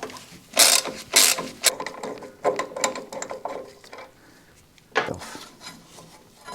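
Ratchet wrench clicking in short bursts, with metal clinks, as the front brake caliper is unbolted and taken off.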